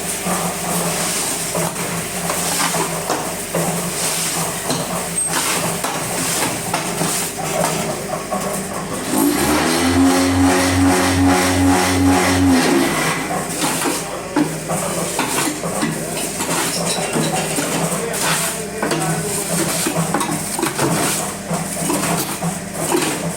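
Hollow block making machinery running with a steady hum and constant metallic clatter. About nine seconds in, a louder pulsing hum starts, about two pulses a second, and stops about four seconds later.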